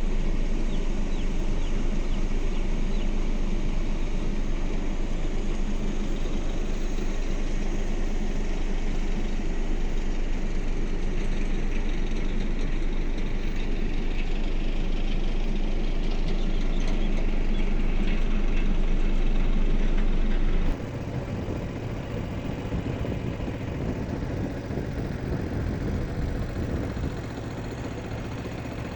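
An engine running steadily. About two-thirds of the way through the sound changes abruptly to a quieter, lower engine note.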